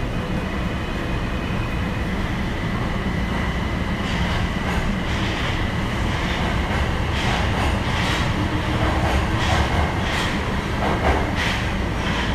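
Tokyo Metro Marunouchi Line 2000 series train standing at an underground platform: a steady low hum from its onboard equipment with a thin, steady high whine. From about four seconds in, a series of brief, sharp noisy bursts joins it.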